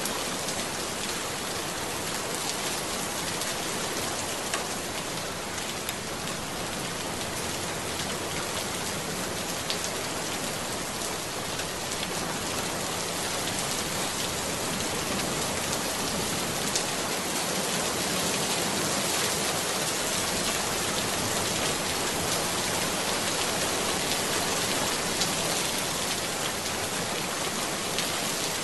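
Steady rain: an even hiss with scattered faint drop ticks.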